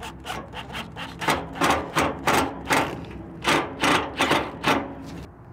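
Cordless drill driving screws into a pellet grill hopper's sheet-metal bottom plate in a quick run of short bursts, about two or three a second, stopping shortly before the end.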